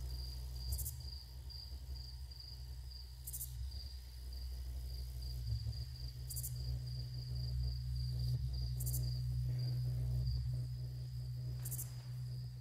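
Crickets trilling steadily over a low, even hum that grows louder toward the end, with a faint high hiss flaring every few seconds; a recorded night-time soundscape played as part of the stage soundtrack.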